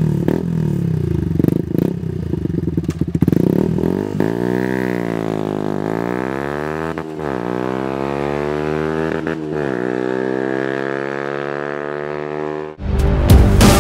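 Yamaha YZF-R125's single-cylinder four-stroke engine through a Dominator full-system exhaust with catalyst eliminator, pulling away from a standstill and accelerating through the gears: uneven at low revs at first, then a rising pitch that drops briefly at each of three upshifts. About a second before the end it cuts off and music starts.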